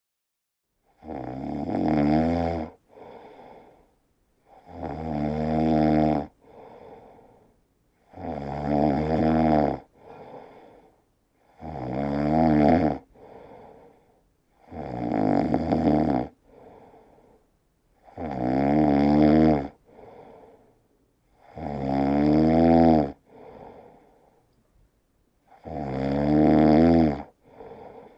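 A person snoring loudly in a steady rhythm: eight long snores about three and a half seconds apart, each swelling louder as it goes and followed by a shorter, softer breath.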